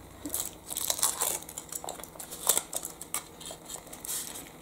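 Foil wrapper of a Kinder Surprise egg crinkling as it is peeled off the chocolate egg by hand, in quick irregular crackles.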